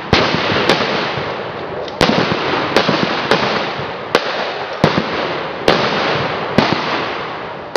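Blank rifle fire from a battle reenactment: about nine sharp shots at uneven intervals, each followed by a long echoing decay.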